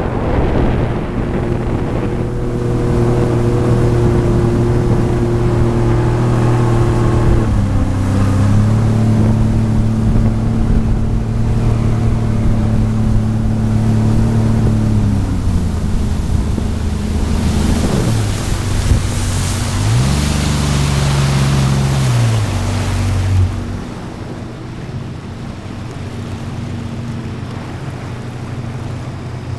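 Jet ski engine running under way, with water rushing and wind on the microphone. Its pitch drops and rises several times as the throttle is eased and opened again. Near the end the engine note drops away, leaving a quieter hiss of wind and water.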